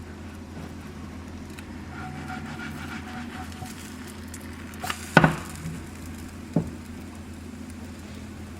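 Kitchen cooking sounds: a steady low hum with faint sizzling from food frying in a pan. A couple of sharp clatters of a utensil or dish come about five seconds in, and one more a second and a half later.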